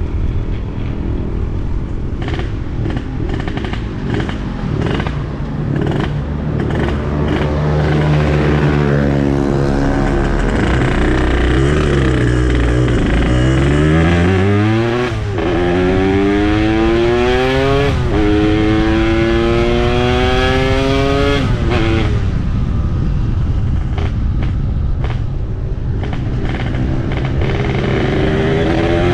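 Yamaha RX-King 135cc two-stroke single-cylinder engine ridden hard, its exhaust set up for a deep 'ngorok' snoring note. The engine holds steady at first, then revs climb sharply about halfway through. The pitch drops back and climbs again at each of the next couple of gear changes.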